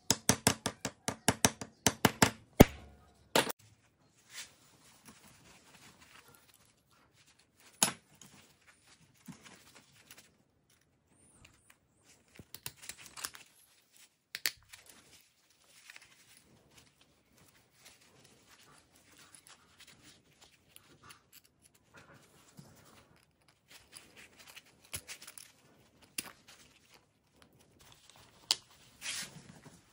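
Chainsaw chain links and small metal parts clicking as they are handled, with a rapid run of sharp clicks in the first few seconds, then scattered quieter clicks and rustling.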